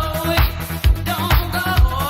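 Dance music with a steady kick drum about twice a second and a sliding melody line gliding over it.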